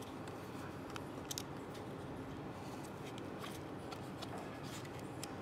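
Faint handling noise: a few light clicks and taps as a DSLR camera body is turned over in the hands, over a steady background hiss.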